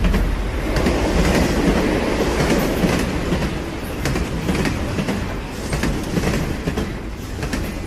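A loud, rumbling mechanical clatter with many quick, irregular clicks, slowly fading.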